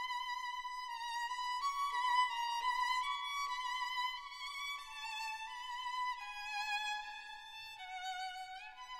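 Background music: a solo violin playing a high, slow melody with vibrato, sliding up into a note near the end.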